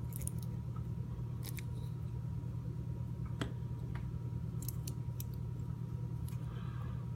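A few scattered light metallic clicks from handling the parts of a disassembled padlock and its core, over a steady low hum.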